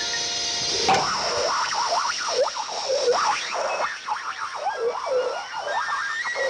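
Cartoon sound effect of an over-inflated balloon let loose, squealing as the air rushes out, its pitch swooping up and down about twice a second. It starts suddenly about a second in.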